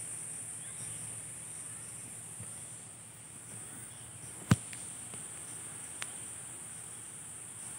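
Steady high-pitched insect chorus chirring without a break. A single sharp click comes about four and a half seconds in, with a fainter one about a second and a half later.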